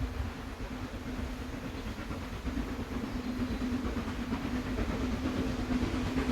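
Train on a heritage railway running, a low rumble with a steady hum that grows louder about two and a half seconds in.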